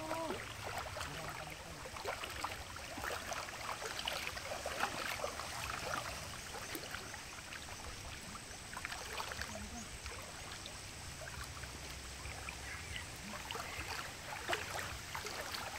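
Shallow river water flowing and rippling, with scattered small splashes and trickles of someone wading through it.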